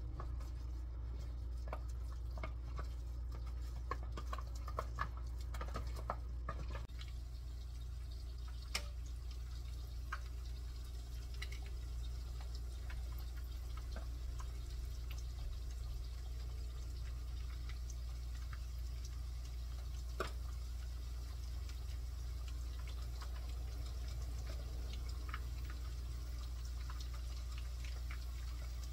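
Chicken wingettes frying in a pan of hot oil: a steady, even crackling sizzle. Irregular clicks and knocks over the first several seconds, and a few sharp clicks later on, over a steady low hum.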